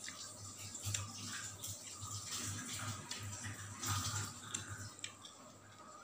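Close-up eating sounds: wet chewing and lip-smacking, with irregular small clicks as fingers press and mix rice on a banana leaf.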